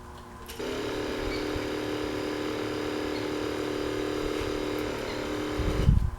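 A steady, pitched howl from a 2000 Yamaha Road Star motorcycle starts suddenly about half a second in, holds one pitch, and cuts off near the end, giving way to a brief low rumble. The owner traced this noise to the crankcase-vent hose to the air cleaner and the PC valve fitted in it, and suspects the valve has crud in it.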